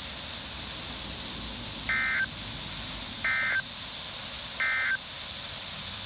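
Three short bursts of NOAA Weather Radio SAME digital data tones from a weather radio's speaker, evenly spaced a little over a second apart, over steady radio hiss: the end-of-message bursts that close a Required Weekly Test broadcast.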